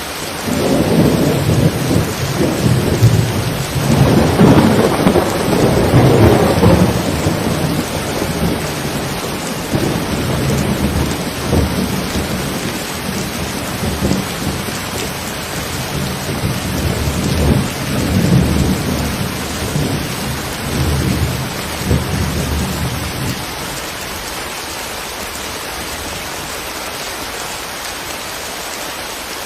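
Steady rain with a long roll of thunder that breaks in suddenly, is loudest a few seconds in, and rumbles on for about twenty seconds before dying away, leaving the rain alone.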